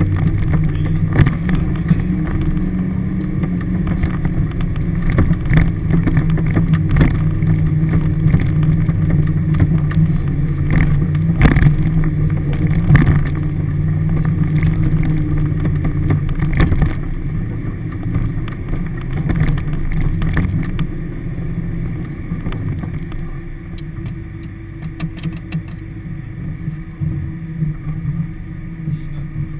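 Toyota Hilux 4WD engine running steadily, heard from inside the cab, with frequent knocks and bangs as the vehicle jolts along a rough bush track. The engine note drops and everything grows quieter after about twenty seconds.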